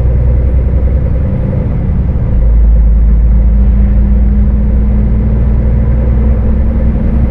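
Scania S500 truck engine droning steadily under way, heard from the cab. The low rumble dips briefly about a second and a half in, then comes back fuller and steadier.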